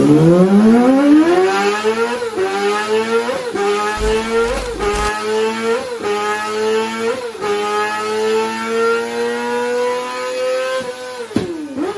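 Yamaha YZF-R sportbike engine and exhaust accelerating hard through the gears. The pitch climbs steeply, dips sharply at each of about five quick upshifts, then holds high revs before falling off near the end.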